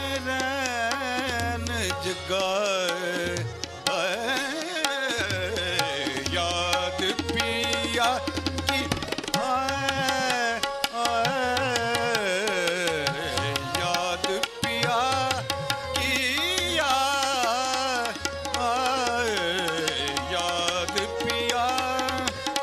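Hindustani classical thumri music: a melodic line moves in fast, wavering ornamented runs over tabla and a steady drone.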